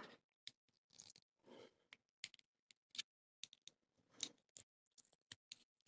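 Faint scattered clicks and a few short scrapes of tape being cut and picked off a polyurethane-patched skateboard wheel with a small plastic pry tool.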